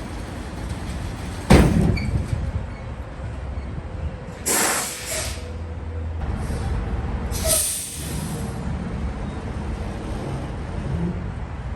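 Semi-truck idling with a steady low rumble, a single loud bang about a second and a half in, then two short hisses of released air, typical of a tractor-trailer's air brakes.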